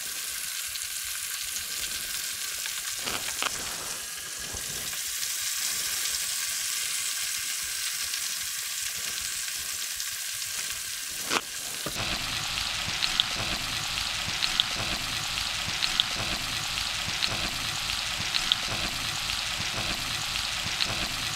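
Flour-dredged pike pieces sizzling in hot vegetable oil in a frying pan, a steady frying hiss with a few sharp clicks. About halfway through the sound turns fuller and slightly louder, with faint ticks about every second and a half.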